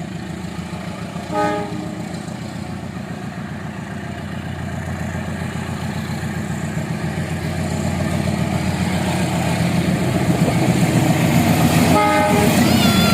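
Train horn sounding briefly about a second and a half in, then again twice near the end, over a steady low drone that grows louder as the train approaches.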